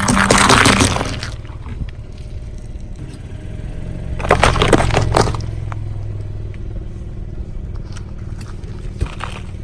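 A car tyre crushing objects with a crackling crunch. One burst lasts about a second at the start and a second comes about four seconds in, over the car's low, steady engine.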